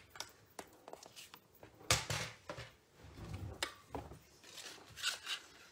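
Paper and a paper trimmer being handled: a few light clicks and taps with soft paper rustling, the loudest tap about two seconds in.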